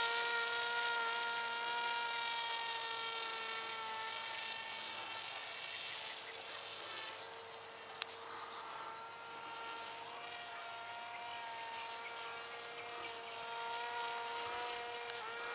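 Wild Hawk RC airplane's propeller motor buzzing steadily in flight. It fades as the plane moves off and grows louder again near the end, with a single sharp click about eight seconds in.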